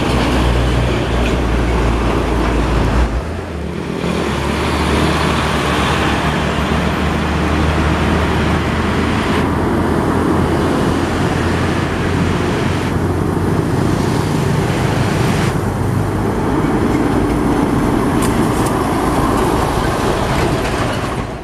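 Heavy diesel trucks and motorcycles passing close on a highway: engines running and tyres on the road in a steady traffic noise, with a deep engine drone that drops away about three seconds in.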